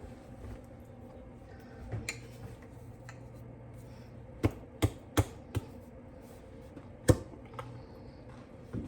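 Sharp clicks and taps of kitchen items being handled, one about two seconds in, four in quick succession around the middle and a loudest one near the end, over a steady low hum.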